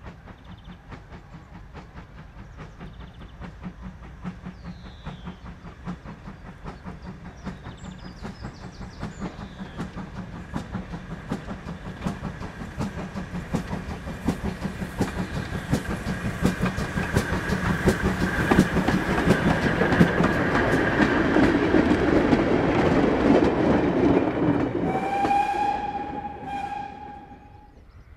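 Steam locomotive working a train towards the listener, its rapid exhaust beats and wheel noise building steadily to a peak about twenty seconds in. Near the end the steam whistle sounds for about two seconds, then the sound drops away. Birds chirp faintly early on.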